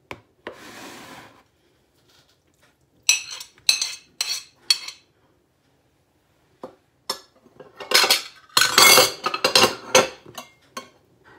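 A spoon and plate knocking and scraping against a plastic mixing bowl as filling ingredients are tipped in and mixed. A brief scrape comes first, then four separate knocks, then a dense clatter near the end, which is the loudest part.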